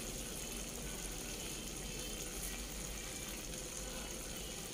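Tomato-and-onion sarciado simmering in a frying pan with a little added water: a steady, even sizzle.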